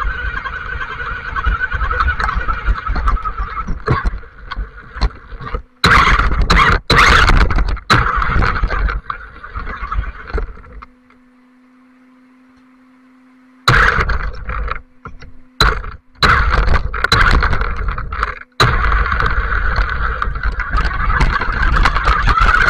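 Electric 4x4 RC buggy's motor and gears whining, heard from a camera mounted on the car, with tyre and gravel noise as it drives over wet ground. The sound cuts in and out with the throttle, drops to a faint steady hum for a couple of seconds about eleven seconds in, and the whine rises in pitch near the end as the car speeds up.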